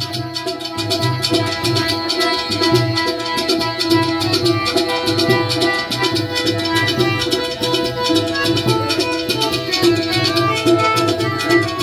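Live traditional South Asian music: held melodic notes from an instrument over a fast, steady hand-drum beat.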